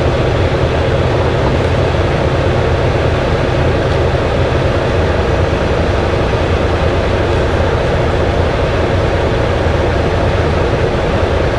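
Semi truck's diesel engine running steadily, a constant low drone heard from inside the cab.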